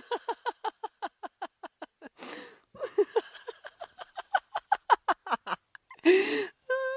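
Laughter sound effect: rapid cackling 'ha-ha' pulses, about seven a second, each falling in pitch, broken by a noisy in-breath about two seconds in and a louder wheezing gasp near the end.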